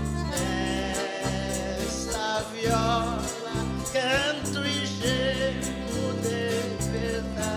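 Woman singing a Brazilian country (caipira) ballad with a wide vibrato on held notes, over plucked viola caipira and sustained low instrumental notes.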